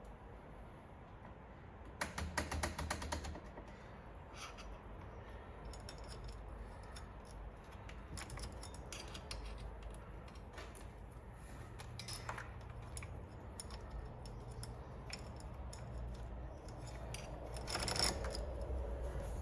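Bicycle chain clicking and rattling as it is handled and run around the drivetrain. There is a quick run of clicks about two seconds in, another near the end, and scattered clicks in between.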